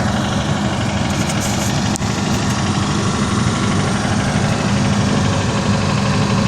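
An engine running steadily at idle, a constant hum that does not change.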